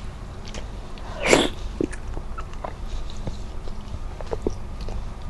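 Close-miked eating sounds: wet clicks and smacks of the lips and mouth while chewing soft chicken and leafy greens from tinola with rice, with one short, louder noisy burst about a second in.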